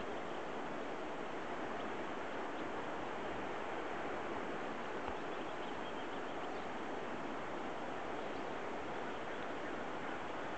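Steady outdoor rushing noise of wind and water, with a few faint, brief high notes.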